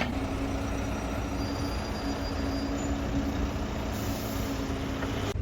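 A moving vehicle running, with a steady low hum over rumble and hiss and a faint high whine.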